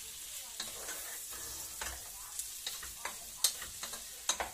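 Sliced sausage and crab meat frying in oil in a pan: a steady sizzle, while a wooden spatula stirs and scrapes against the pan with irregular sharp knocks, the loudest about three and a half seconds in.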